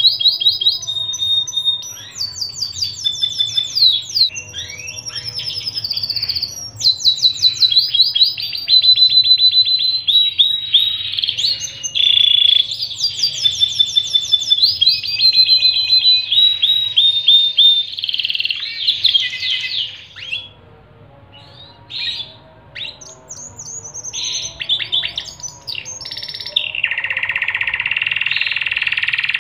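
Pied 'panda' domestic canary singing a long, varied song of fast high trills and rolls, with a brief break about two-thirds through and a lower buzzing roll held near the end. A steady low hum runs underneath.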